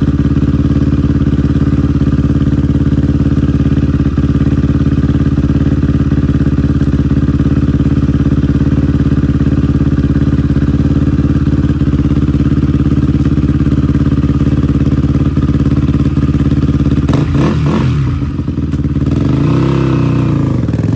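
Dirt bike engine idling steadily. About four seconds before the end it is revved, and the bike pulls away with its pitch rising.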